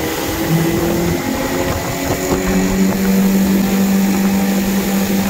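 Outboard motor of a 60 hp Seanovo EFI, Chinese fuel-injected, running flat out as the boat accelerates hard from a standing start, heard over the rush of wind and water. Its pitch settles into a steady high note about two seconds in, the engine held near its rev limiter.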